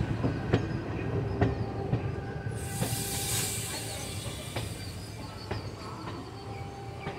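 Passenger train coach running over jointed track and points, its wheels clacking at irregular intervals over a steady rumble. A burst of hiss comes about three seconds in.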